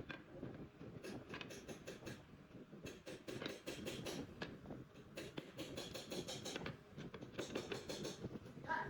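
Bursts of rapid, evenly repeated scraping strokes with sharp clicks, over a steady rustling, typical of hand work on wood. Four bursts of a second or so each, with a short pitched squeak near the end.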